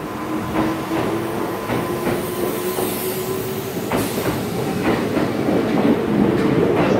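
Kintetsu 12200-series limited express train pulling out and gathering speed. A low hum rises in pitch over the wheels clacking across rail joints, and the sound grows louder toward the end.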